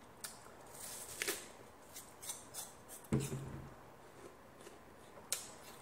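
Crisp crunching of a raw apple being bitten into and chewed, heard as a run of short, sharp crunches. A louder knock comes about three seconds in.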